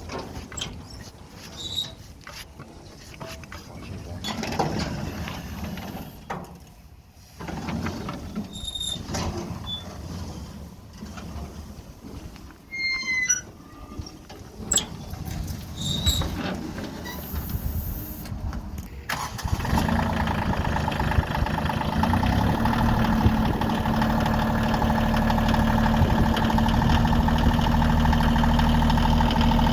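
Scattered knocks and a few short squeaks, then about two-thirds of the way through a Bobcat CT2025 compact tractor's diesel engine starts and runs steadily.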